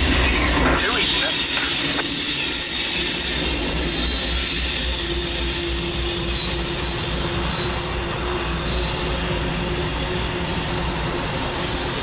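Norfolk Southern freight train rolling past and moving away, its wheels squealing steadily over a low rumble that slowly fades.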